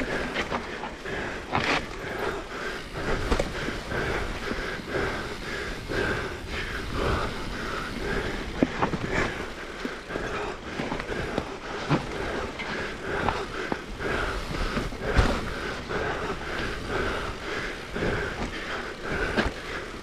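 Mountain bike riding a forest trail: tyres rolling over dirt and roots with a steady rough rumble, and frequent knocks and rattles from the bike over bumps.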